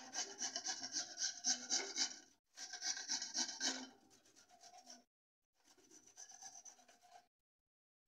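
An onion being grated on a flat metal hand grater: quick, rhythmic rasping strokes that pause briefly twice, grow fainter in the second half and stop shortly before the end.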